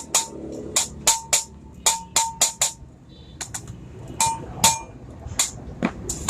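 Hammer blows on metal while an old tractor clutch plate is being rebuilt, with a short ring after some strikes. A quick run of about nine blows comes first, then a pause, then a few more spaced blows.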